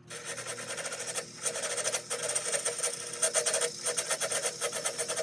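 Parting tool cutting into a goncalo alves shift knob spinning on a wood lathe: a harsh, fast-repeating scraping chatter with a few brief pauses, over the lathe motor's steady hum.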